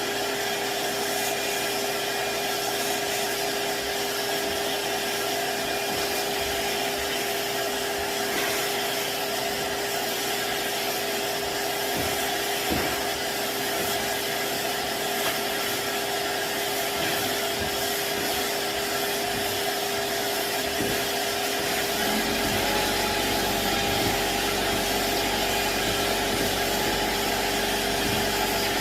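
Vacuum drywall sander running, a steady motor whine under a continuous hiss of sanding on joint compound. About three quarters of the way through, a low rumble joins in and stays.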